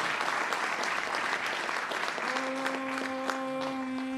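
Audience applauding. About halfway through, a single long, steady held note comes in over the clapping.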